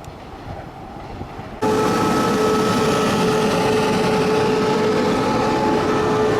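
A train passing close by. A low rumble gives way abruptly, about one and a half seconds in, to a loud, steady sound: several held tones ringing over a dense rumble.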